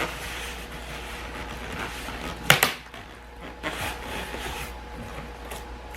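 Cardboard box and styrofoam packing scraping and rustling as an air fryer oven is tugged out of its box, with a couple of sharp knocks, the loudest about two and a half seconds in.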